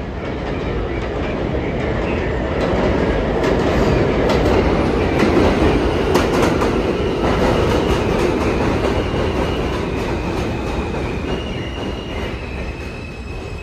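R160A subway train pulling into an elevated station: rumble and clatter of steel wheels on the rails, loudest as the front cars pass about five seconds in and easing off as it slows, with a thin high whine near the end.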